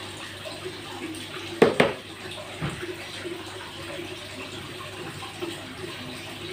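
Steady rush of running water, with a nail clipper snapping through a pet turtle's claw in two sharp clicks close together about a second and a half in, and a softer knock a second later.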